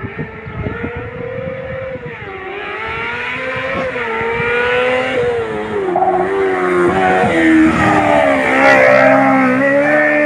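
Race car engine revving hard through the gears on a slalom course, its pitch climbing, dropping at each shift and stepping down several times as it slows for corners, getting louder toward the end.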